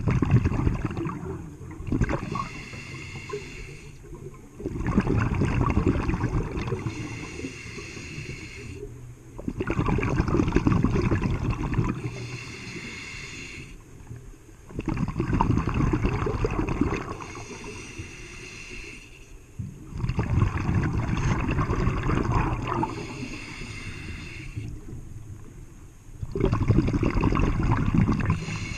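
A scuba diver breathing through a regulator underwater: a hiss on each inhale, then a loud rush of exhaled bubbles. The cycle repeats about every five seconds, six times.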